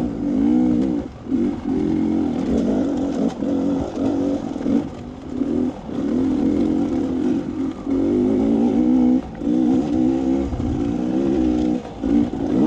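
Dirt bike engine being ridden on the throttle, its pitch rising and falling as the rider opens and closes the throttle. Short drops in level come every second or two, where the throttle is rolled off.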